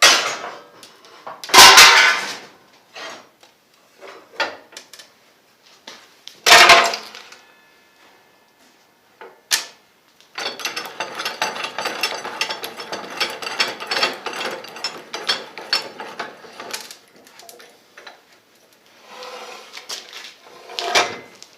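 Steel rod and metal tools handled on a bench: a few loud knocks, then about six seconds of fast clicking and rattling, like a ratchet or a mechanism being worked.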